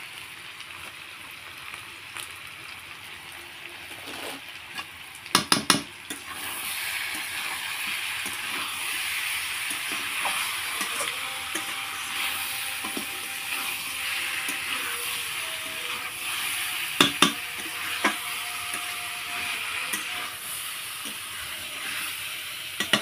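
Chicken frying in hot oil with ground spices in a pan, sizzling steadily while it is stirred; this is the bhuna stage, where the chicken roasts in the masala. The sizzle grows louder about six seconds in, and the stirring spoon knocks against the pan in quick clusters about five seconds in and again near seventeen seconds.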